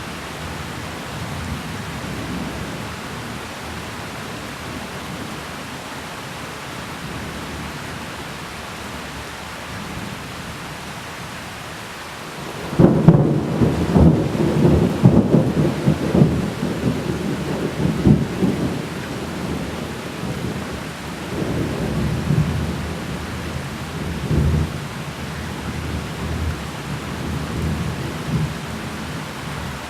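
Thunderstorm: steady rain, then about 13 seconds in a sudden loud thunderclap that rolls on in repeated waves, fading gradually toward the end.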